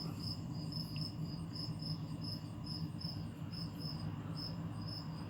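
A cricket chirping steadily, about three short high chirps a second, over a low steady hum.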